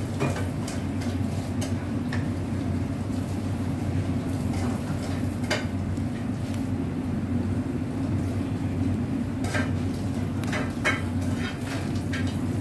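A steady low hum with scattered light clinks of dishes and cutlery, most of them in the first two seconds and the last three.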